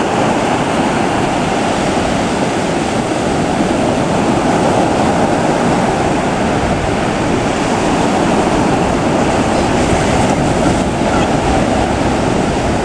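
Small ocean waves breaking and surf washing over the shallows, a steady rush of water.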